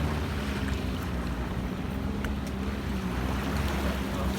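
Boat engine running at a steady low drone, with wind and water noise over it.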